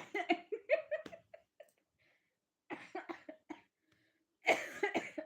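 A person coughing in three short bouts of rapid coughs: one at the start, one about three seconds in, and one near the end.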